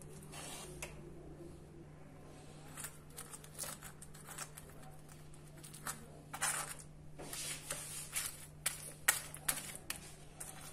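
Metal spoon spreading ketchup over a paratha on a plate: irregular soft scrapes and clicks as the spoon works the sauce and taps the plate, busiest near the end, over a steady low hum.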